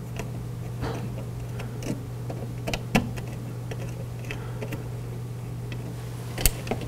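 Small flathead screwdriver working the terminal screws of a thermostat wiring block: scattered light clicks and ticks of the metal tip on the screws and plastic block, with a sharper click near the end.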